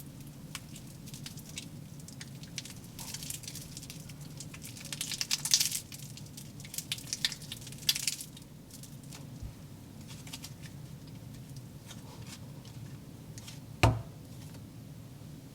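Hands squishing a toy cake of slime and foam dough, giving crackly, squelching bursts for a few seconds in the middle, then a single thump near the end. A low steady hum runs underneath.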